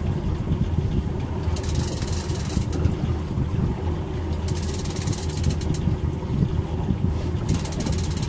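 Twin outboard motors running at slow trolling speed, a steady low drone. A brief hiss rises over it about every three seconds.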